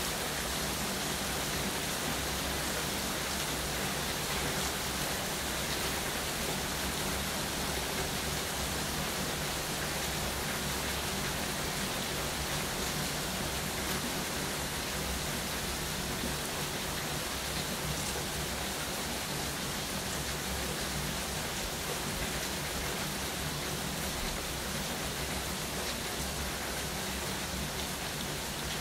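Rain falling steadily, an even hiss of drops on surfaces.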